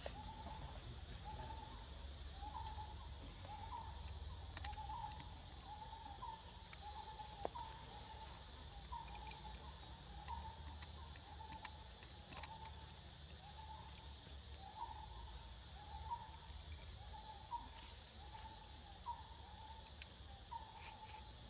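A forest bird calling over and over, a short note that rises at its end, repeated about once or twice a second, over a steady high hiss and a few sharp clicks.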